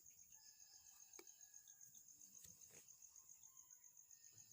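Near silence with a faint cricket chirping in the background, a high, rapid, even pulse, plus a few faint clicks.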